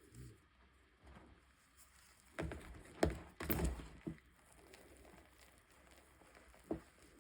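Chalk being broken and crushed by hand: a cluster of short crunchy cracks and crackles in the middle, then a single crack near the end.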